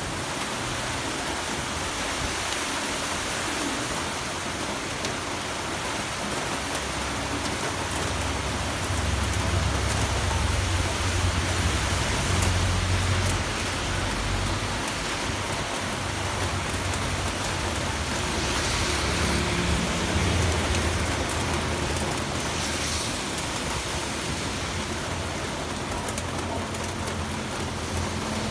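Steady heavy rain falling on corrugated metal roofs, with a low rumble that swells and fades at times.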